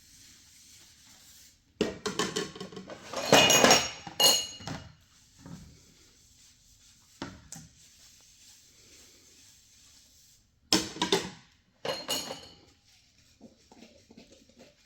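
Several bursts of clattering and knocking of hard objects, some with a metallic ring. The longest and loudest burst comes a couple of seconds in, with shorter ones later on.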